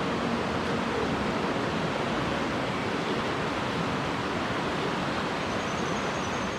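Mountain stream water rushing steadily, an even hiss with no change.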